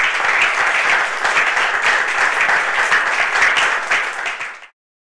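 Audience applauding steadily after a lecture, many hands clapping at once, cut off abruptly near the end.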